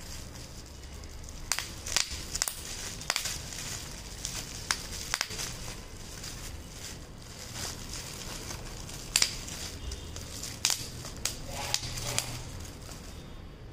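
Plastic bubble wrap being handled and squeezed: continuous crinkling with a dozen or so sharp, irregular crackles and pops.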